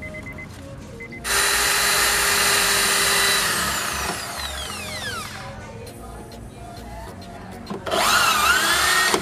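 Handheld electric drill boring screw holes in a car door panel for a speaker spacer ring. It runs twice: first for about two seconds, with a falling whine as the motor spins down after the trigger is released; then briefly near the end, its pitch sagging and recovering as the bit bites.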